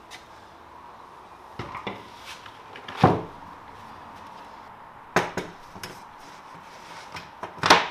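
Knocks and thuds of a large MDF sheet being handled and laid on wooden sawhorses, and of tools being set down on it: a few scattered sharp knocks, the loudest about three seconds in, with another strong knock near the end.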